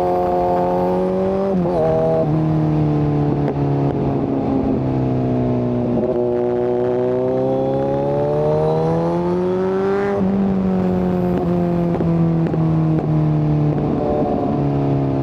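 Kawasaki Z900's inline-four engine through a de-catted SC-Project exhaust, under way and changing gear. The revs dip sharply at a shift a couple of seconds in, then climb steadily for about four seconds. They drop sharply about ten seconds in and fall away, with another change near the end.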